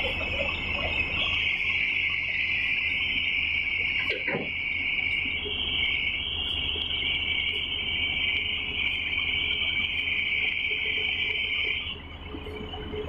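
A large Tata Hitachi hydraulic excavator working, its diesel engine a constant low hum under a loud, steady high-pitched hiss that cuts off abruptly about twelve seconds in. A single knock sounds about four seconds in.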